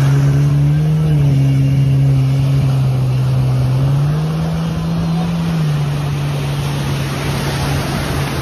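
Jet ski engine running as the craft heads out through the surf. Its note steps up in pitch about a second in and again around four seconds, then drops back just before six seconds, over the steady wash of breaking waves.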